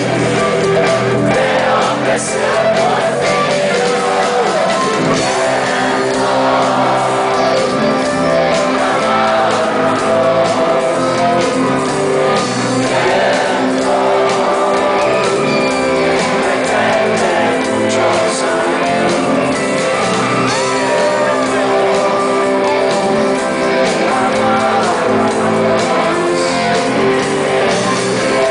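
Live rock band playing loud, led by electric guitar over drums and keyboards, with voices singing, in a large hall.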